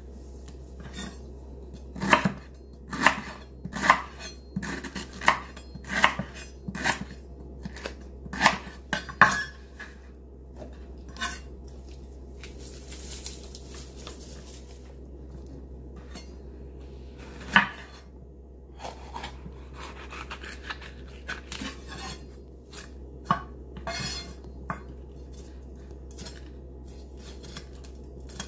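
Chef's knife chopping green onion on a bamboo cutting board: single separate chops about once a second, each a sharp knock of the blade on the wood, thinning out to occasional chops later. A brief scraping sound comes around the middle.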